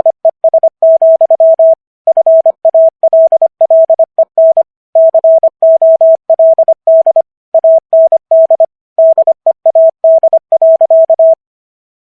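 Morse code sent at 25 words per minute: a single steady mid-pitched tone keyed on and off in dots and dashes, with short gaps between letters and longer ones between words. The code stops about eleven seconds in.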